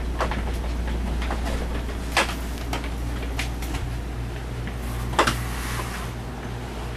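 Scattered knocks and clicks, two louder ones about two and five seconds in, over a steady low hum inside a boat's cabin.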